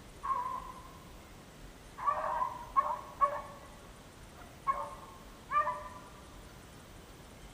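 Hunting hounds baying in short pitched calls, about six of them. The first is the longest, and several follow close together a couple of seconds in.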